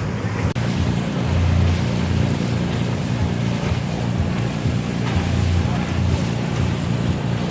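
Pirate-ship tour boat's engine running steadily with a low rumble, with wind noise on the microphone.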